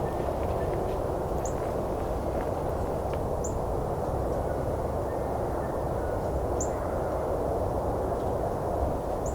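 A small songbird giving a short, very high, thin call about every two to three seconds, over a steady low background rumble.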